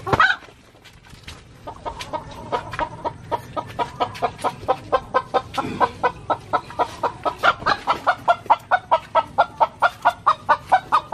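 A chicken clucking in a rapid, steady rhythm of about four clucks a second, starting about two seconds in and growing louder. A short, loud rising sound comes right at the start.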